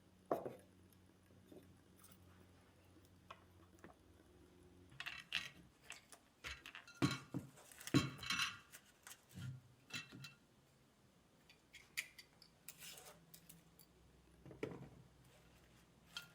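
Hard objects being handled and set down: scattered light clinks and knocks, busiest in the middle, over a faint steady hum.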